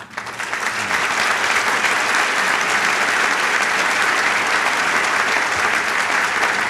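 A large audience applauding: dense, steady clapping that swells within the first second and holds.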